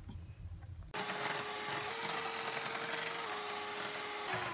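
Philips electric hand mixer switched on about a second in, its motor whining steadily as the beaters whisk thick cream, the pitch stepping up slightly in the middle and back down. Near the end it is switched off and the whine falls away as the motor spins down. This is the final beating of the cream to stiff peaks.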